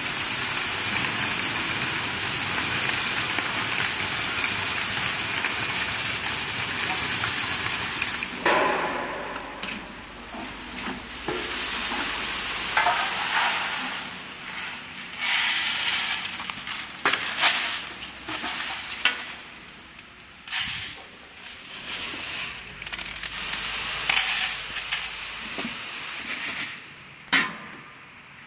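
WEBEST optical colour sorter running with a steady hiss while speckled kidney beans stream through it. From about eight seconds in, the hiss gives way to repeated short bursts of dry beans being poured and rattling into a plastic crate and an enamel tray.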